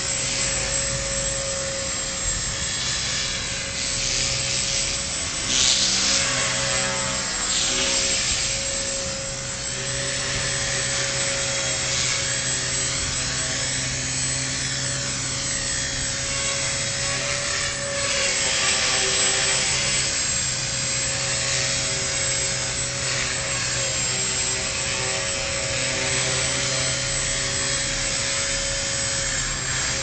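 Align T-Rex 250 electric RC helicopter in flight: a steady whine from its motor, gears and rotors, the pitch sliding up and down again and again as it manoeuvres. Wind noise runs underneath on the microphone.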